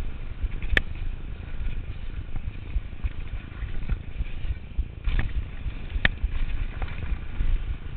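Turner DHR downhill mountain bike riding fast down a dirt trail, heard from a chest mount: a steady low rumble of tyres on dirt and wind buffeting, with a few sharp knocks from the bike, one about a second in and two around five and six seconds in.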